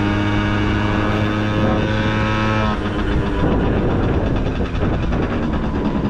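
Honda Topic 50cc two-stroke scooter engine running under way and pulling weakly, barely gaining speed. Its steady tone breaks up about two and a half seconds in into a rougher, noisier rumble.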